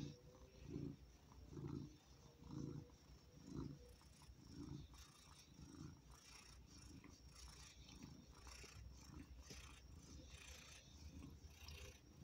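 Domestic cat purring while having its chin scratched: a faint low rumble that swells with each breath, about once a second, stronger for the first few seconds and softer after.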